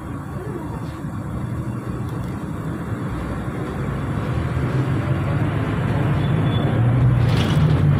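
Road vehicle engine running with a steady low rumble that grows gradually louder, with a short hiss near the end.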